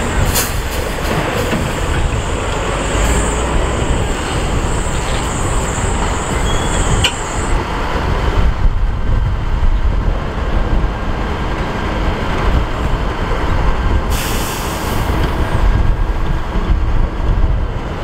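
Heavy 8x4 dump truck engines running with a steady low rumble, a thin high whine that stops about seven seconds in, and a short burst of hiss about fourteen seconds in.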